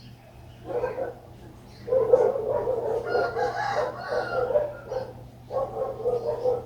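An animal calling in long pitched cries: a short one about a second in, a long one lasting about three seconds, and another near the end.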